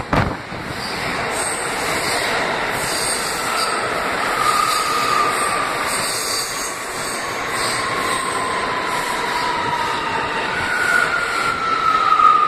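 A New York City Subway R179 train running past the platform as it enters the station: a steady rumble of wheels on rail with high squealing tones that slide slowly down in pitch several times. A sharp click right at the start.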